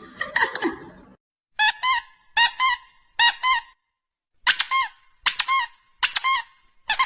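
Short, high-pitched squeaks in groups of two or three, with silent gaps between them, then a fast continuous run of squeaks near the end.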